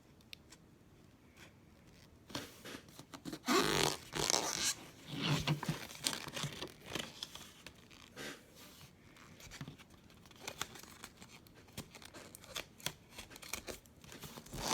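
Handling noise of craft materials being worked by hand: loud rustling and scraping a couple of seconds in, then scattered small clicks and scratches.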